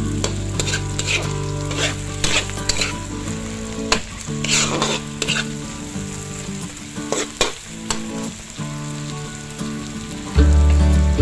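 Sliced onion, garlic, ginger and red pepper sizzling in oil in a wok, stirred with a metal spatula that scrapes and knocks against the pan at irregular moments.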